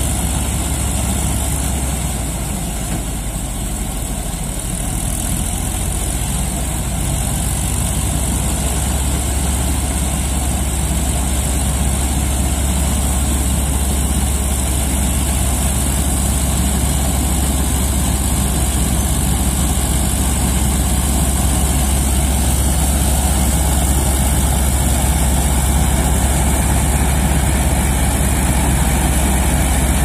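Combine harvester working in standing wheat: its diesel engine and threshing machinery run steadily under load, a deep continuous hum with a high hiss over it. It is slightly quieter a few seconds in, then grows gradually louder as the machine comes closer.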